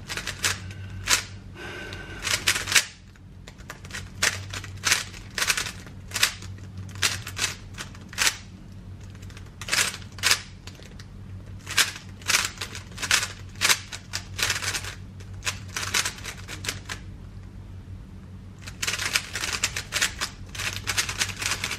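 GAN 13 MagLev 3x3 speedcube being turned at speed during a timed solve: bursts of sharp, rapid clicks as the layers snap round, broken by short pauses, with a dense run of clicks near the end.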